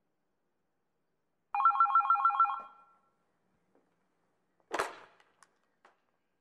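A telephone ringing once: a short electronic trill of two rapidly alternating tones, about a second long, starting about a second and a half in. A brief burst of noise follows about three seconds later.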